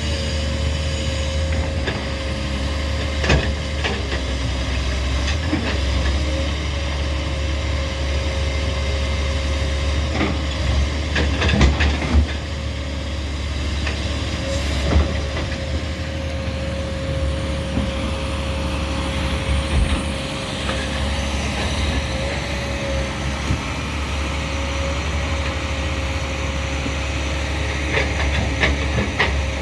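Doosan 300 excavator's diesel engine running steadily, with a steady whine over the low rumble. Several sharp knocks sound over it, the loudest a cluster about twelve seconds in and another near the end.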